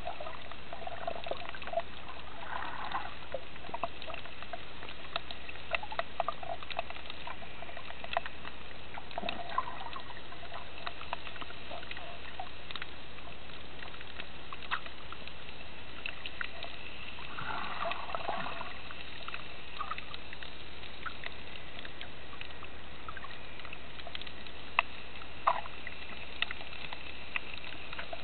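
Underwater sea ambience picked up by a submerged camera: a steady hiss with scattered sharp clicks and crackles, and a few brief watery gurgles.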